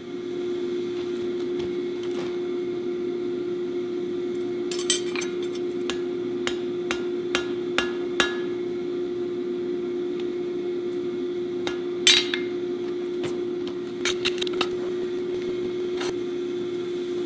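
Hand hammer striking hot steel on an anvil while forge welding, scattered single blows and short clusters about 5, 7–8, 12 and 14 s in, the loudest about 12 s in, with a steady hum underneath.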